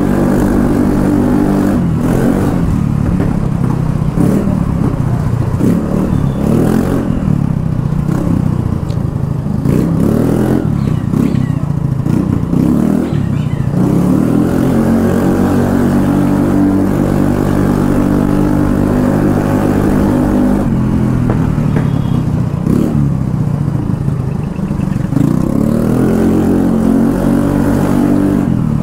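Yamaha Fascino scooter's single-cylinder engine running loud through an aftermarket Akrapovic exhaust with the DB killer removed. The revs rise and fall again and again, with a steadier stretch in the middle.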